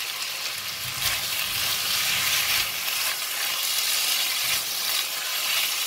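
Sliced pork, ginger and spring onion stems sizzling in hot oil in a nonstick wok while a silicone spatula stirs them. The sizzle gets louder about a second in.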